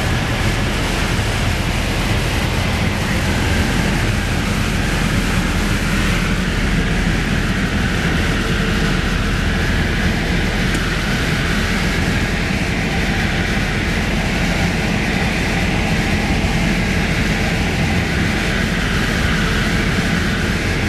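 Piper PA-28 single-engine light aircraft in flight, heard from inside the cabin: the piston engine and propeller give a loud, steady drone with an even rush of air over it.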